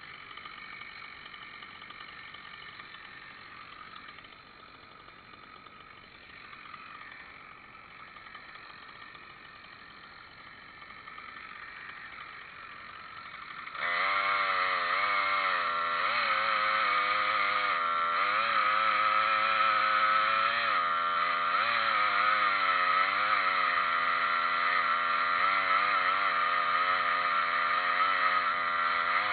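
Chainsaw engine running, fainter at first, then much louder about halfway through, its pitch wavering and dipping repeatedly as it works under load.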